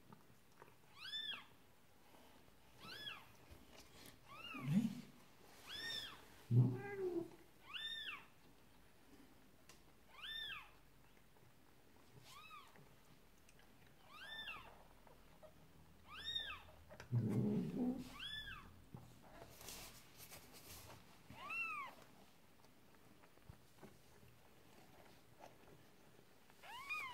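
Newborn Persian kitten mewing: short, high-pitched cries repeated about every one to two seconds, with a few lower, louder cat calls mixed in.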